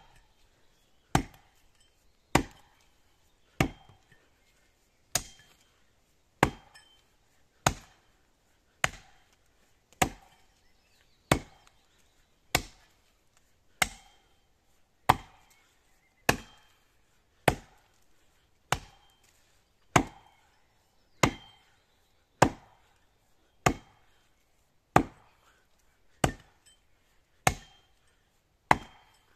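Axe chopping into a standing pine trunk in a steady rhythm, one sharp strike a little over every second, each with a short ring after it.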